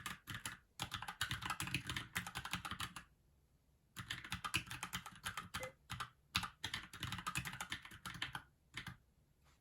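Keychron K6 mechanical keyboard being typed on in quick runs of key clicks, with a pause of about a second just after three seconds in; the typing stops shortly before the end.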